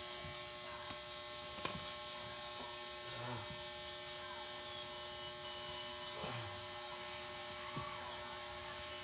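Steady electrical hum made of several constant tones, with a few faint clicks.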